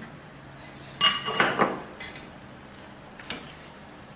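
A plastic spatula stirring rice and vegetables in a nonstick wok, knocking against the pan. There is a short run of ringing clatter about a second in and a single knock a little after three seconds.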